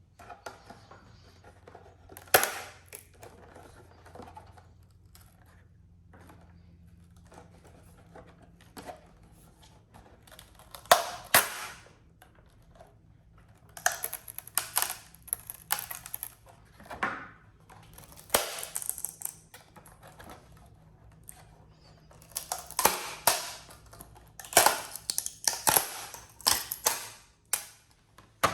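Clicks, knocks and rustles of small hard objects being handled, coming in irregular clusters over a faint steady hum.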